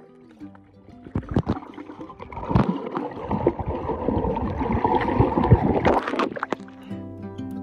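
Swimming-pool water heard through a camera held underwater: muffled rushing and bubbling with scattered sharp clicks and knocks as swimmers move, from about a second in until about six seconds in. Guitar-led background music fades out at the start and returns near the end.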